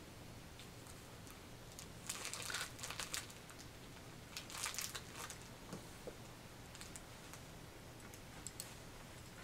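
A dog chewing on a lollipop chew treat, with crackly crunching and crinkling in two short spells about two and four and a half seconds in, then a few scattered clicks.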